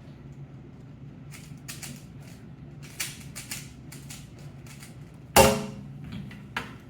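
Rubik's cube being turned quickly: a run of irregular plastic clicks and clacks, then one loud thump about five seconds in with a short ringing tail, and a lighter click near the end.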